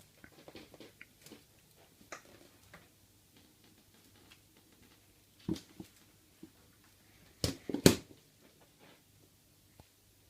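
A cat moving about in a box: scattered faint rustles and clicks, a sharper noise about halfway through, and two loud sudden scrapes close together a little later.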